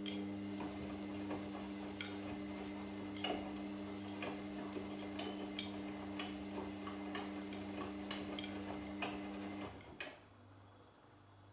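Washing machine turning its drum with laundry inside: a steady motor hum with irregular clicks and knocks as the load tumbles. The motor stops about ten seconds in, as the drum pauses in the wash cycle.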